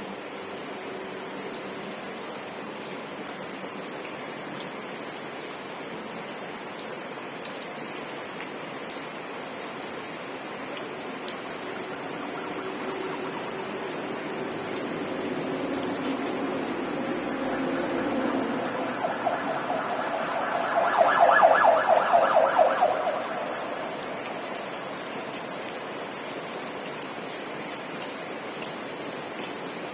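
Steady rain falling, with a motor vehicle passing by through it: it builds from about halfway, is loudest for a few seconds about two-thirds through with a fast pulsing engine note, then fades back into the rain.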